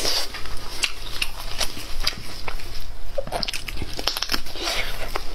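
Close-up eating sounds of pork knuckle: meat torn from the bone by hand and bitten, with wet chewing and many quick crackly clicks.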